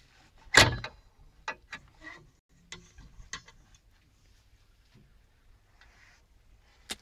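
Metal latch of a mini excavator's side service panel being released with a sharp clack about half a second in, followed by several lighter clicks and knocks as the panel is swung open.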